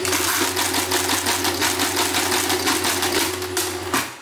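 Rheinmetall SASL electric mechanical calculator running an automatic multiplication. A steady motor hum sits under a fast, even clatter of the mechanism cycling, and it stops suddenly with a clunk near the end.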